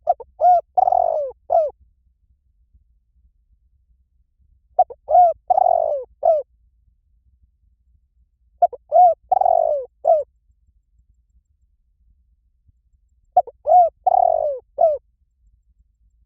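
Spotted dove cooing: four phrases of a few short, arched coos each, one about every four seconds.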